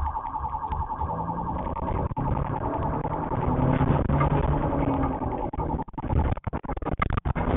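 Car driving, with engine and road noise under a fast-repeating electronic warning beep. Near the end the sound cuts in and out rapidly.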